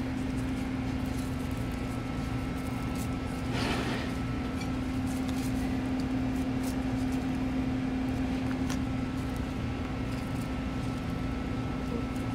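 Steady hum of a running machine, with one low droning tone held throughout, and a short rustle about four seconds in.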